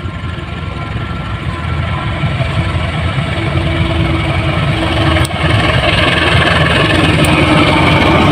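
CC 201 diesel-electric locomotive hauling a passenger train, its engine running and growing steadily louder as it approaches and passes close by, with rolling noise from the coaches.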